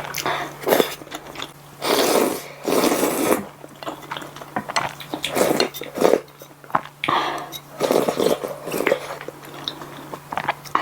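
Close-miked eating of spicy ramen noodles: wet chewing and mouth noises in irregular bursts.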